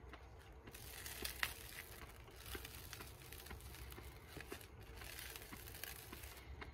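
Faint crackling and tearing of a slice of toast as it is broken and folded in the hands, with a few small crisp snaps.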